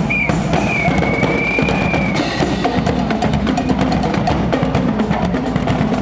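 Marching band's drum section beating a steady cadence on bass drum and snare. A whistle gives a short blast and then one long blast during the first two seconds.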